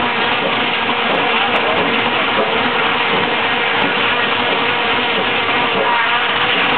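Sawmill machinery running: a steady, loud mechanical din with a faint hum under it.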